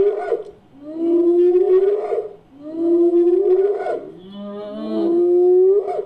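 Designed cave hyena sound effect: a series of rising whoop calls, about three in a row spaced just over a second apart, each climbing in pitch and then breaking off.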